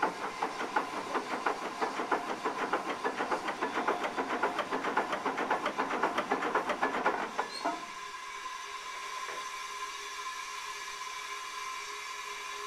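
Crane hoisting a heavy locomotive part on chains: a rapid, even run of sharp beats, about eight a second, that stops abruptly about eight seconds in, leaving a steady high hum.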